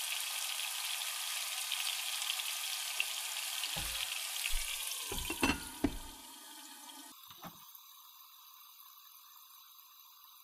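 Chicken breasts and sliced garlic sizzling in oil in a frying pan. About four to six seconds in, a glass pan lid knocks several times as it is set on, and from then on the sizzle is much quieter and muffled under the lid.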